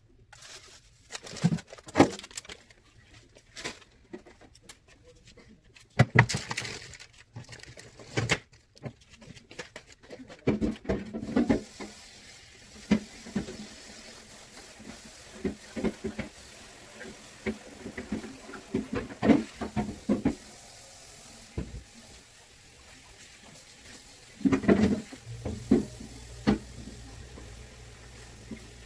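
Kitchen items and food being handled and set down: scattered knocks, taps and rustles. A low steady hum comes in near the end.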